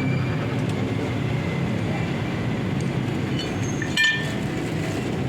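Cylinder boring machine running with a steady mechanical hum. A short metallic clink rings out about four seconds in.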